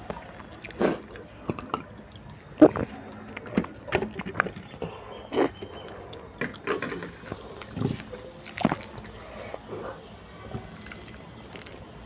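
Wet chewing and mouth sounds of someone eating a mouthful of instant noodles by hand, with irregular sharp clicks and knocks of steel plates being moved on a banana leaf. One knock about two and a half seconds in is the loudest. Fingers squelch through the noodles near the end.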